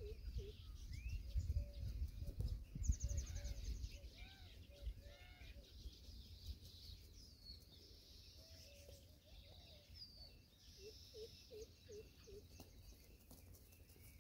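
Birds calling: short chirps and high whistles, with runs of soft repeated notes near the start and again near the end, over a low rumble that fades after the first few seconds.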